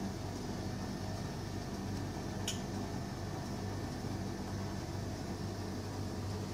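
Steady low electrical hum with an even background hiss, the kind made by running appliances or ventilation in a small room. A single short click comes about two and a half seconds in.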